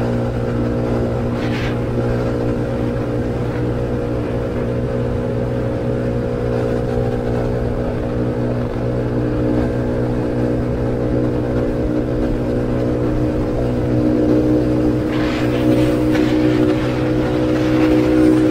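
Yamaha automatic scooter's single-cylinder engine running steadily while riding at road speed, getting a little louder over the last few seconds.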